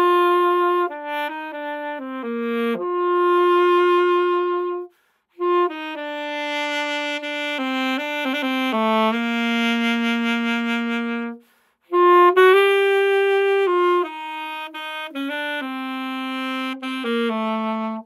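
Solo saxophone playing a slow melody in three phrases, with short breaks about five and eleven and a half seconds in and long held notes at the phrase ends.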